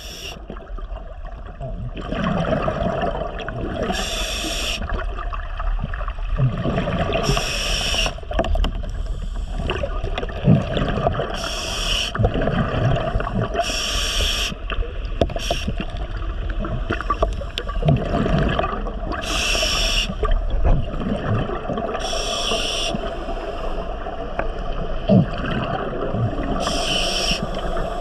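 Scuba diver breathing underwater through a regulator: exhaled bubbles rush out in a burst of about a second every few seconds, over a steady low underwater rumble.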